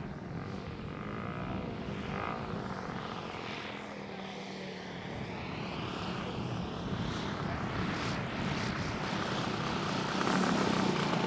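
Engine and propeller of a radio-controlled Yak 55M aerobatic model plane in flight, the note wavering up and down in pitch as it manoeuvres. It grows louder over the last couple of seconds as the plane comes in low over the grass to land.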